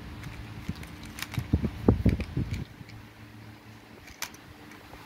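Small plastic toys being handled, knocking and clattering against each other: a run of knocks and clicks about halfway through and one sharp click near the end, over a steady low hum.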